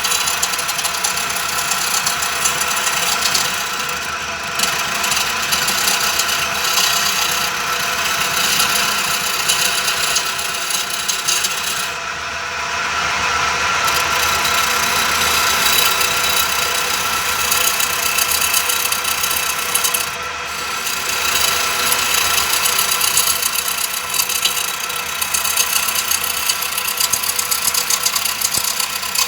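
Homemade wood lathe running, its motor humming steadily while a hand chisel scrapes and cuts the spinning wooden blank, with rattling that swells and eases as the cut goes on.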